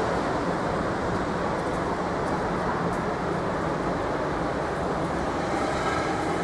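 Steady rumble of Hamburg U-Bahn trains running on the elevated viaduct, blended with city traffic noise.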